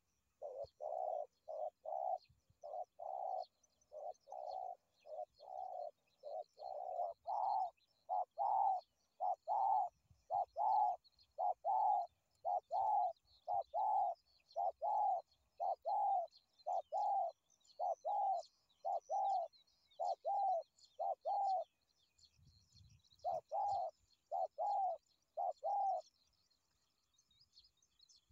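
Spotted dove cooing in a long, steady run of short coos, about two a second. It stops briefly a little after the middle, then gives a few more. Faint chirping of small birds goes on behind.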